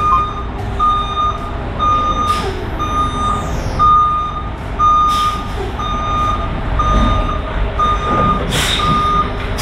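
Vehicle backup alarm beeping steadily, one single-pitched beep about every three-quarters of a second, with a few short bursts of hiss.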